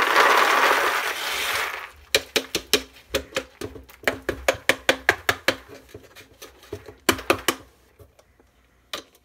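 Beans being sucked up by a vacuum cleaner. A loud rushing rattle lasts about two seconds, then single beans click and clatter through the hose in quick runs that thin out toward the end.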